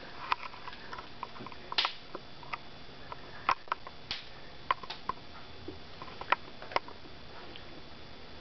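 A bare hand scooping stringy pulp and seeds out of a hollowed pumpkin, giving small wet squishes and clicks at irregular moments.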